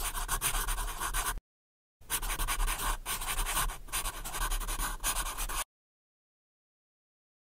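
Scratchy, crackling kitchen noise in two short clips, each cut off abruptly into silence.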